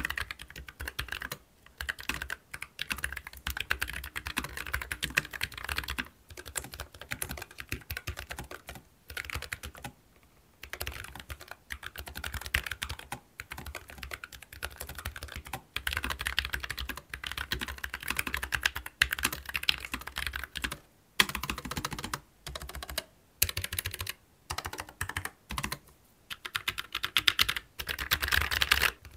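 Typing on Keychron K-series low-profile mechanical keyboards with Gateron Low Profile MX 2.0 switches, played as a sound comparison between the plain and the better-dampened Max models. Rapid key clicks come in runs broken by short pauses.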